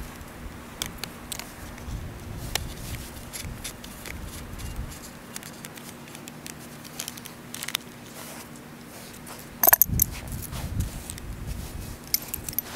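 Small clicks and rattles of hands handling a plastic battery hose timer and PVC pipe fittings, with a short burst of sharper clicks about ten seconds in.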